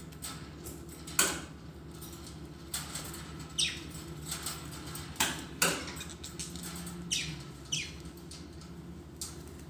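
Budgerigars giving a series of short, sharp chirps, several of them sweeping down in pitch, over a steady low hum.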